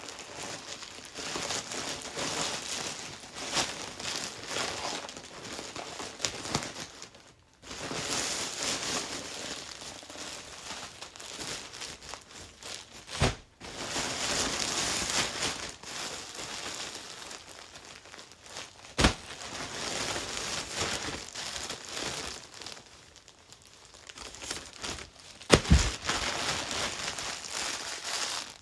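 Packaging crinkling and rustling as a clothing parcel is unwrapped by hand, with a few sharp knocks, the loudest near the end.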